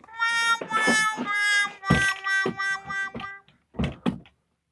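A short snippet of music: held reedy chords that change pitch about halfway through, with a few low thumps near the end.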